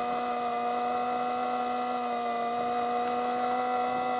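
Steady mechanical whine of a small motor running at constant speed.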